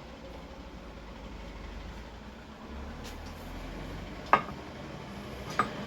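Two sharp knocks, the first the louder, over a steady low hum.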